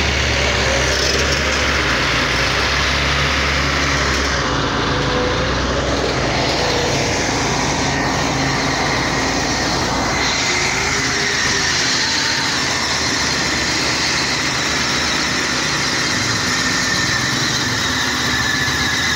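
Heavy diesel engines of the dump truck and the excavator running steadily at a work site, with a deep low rumble that drops away about four and a half seconds in.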